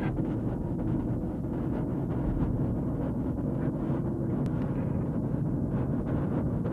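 Steady low rumble of a car driving, its road and engine noise heard inside the cabin.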